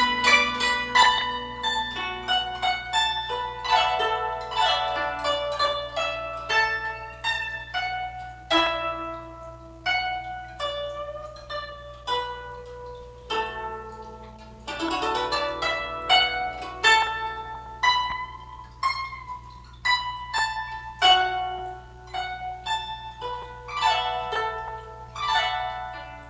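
Guzheng (Chinese plucked zither) playing a traditional melody: a steady stream of plucked notes that ring and fade, with a quick run of notes about fifteen seconds in.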